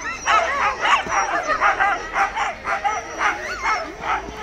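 Harnessed sled dogs (huskies) barking and yipping rapidly, several short calls a second that rise and fall in pitch and sometimes overlap. It is the eager yapping of sled dogs held back at the start, keen to run.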